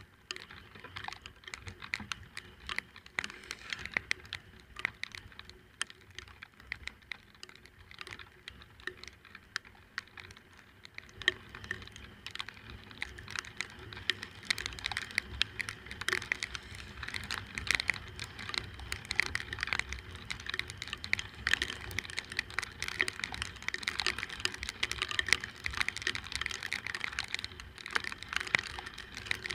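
Raindrops striking the microphone in a dense, irregular patter of small clicks during a scooter ride in the rain. A low rumble underneath grows louder about eleven seconds in.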